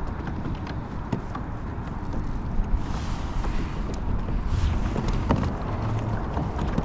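Wind buffeting the microphone as a steady low rumble, with scattered light ticks and two short hissing rushes.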